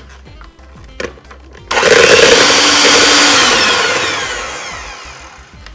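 Electric hand mixer switched on about two seconds in, its beaters churning softened cream cheese and milk in a plastic bowl. Its whine falls in pitch and fades away near the end.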